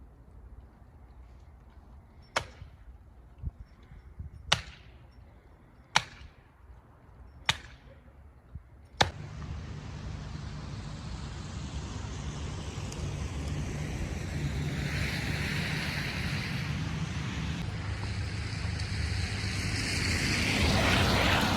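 Five sharp clicks about a second and a half apart, then from about nine seconds in a car running with a low engine hum and road or wind noise that grows louder toward the end.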